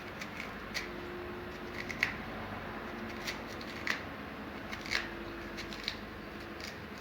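Scraping and cutting into a raw turnip as its middle is hollowed out: short, irregular scrapes roughly once a second.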